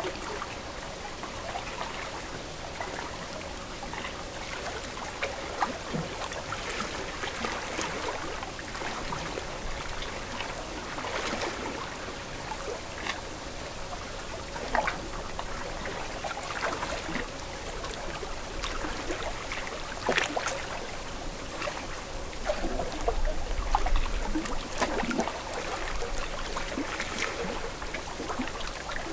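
Lake water lapping at the shore, with many small, irregular splashes and trickles.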